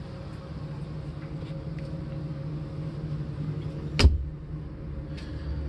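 Steady low mechanical hum, with one sharp thump about four seconds in as a hand pushes against a cabin door.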